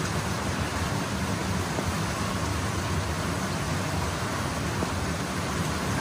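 Steady rush of a small waterfall pouring into a pool, an even hiss of falling and churning water.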